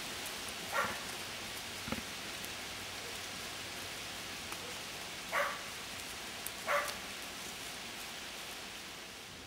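Herding dog barking three times, short and sharp, about a second in and twice more close together around five and a half and seven seconds, over a steady rustling hiss from the sheep flock moving along the grass.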